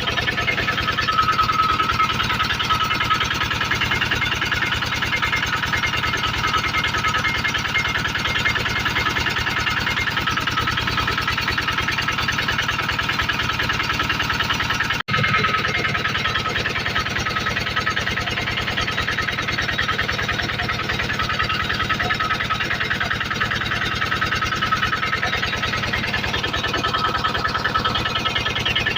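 Generator engine running steadily at a constant speed, with a momentary dropout about halfway through.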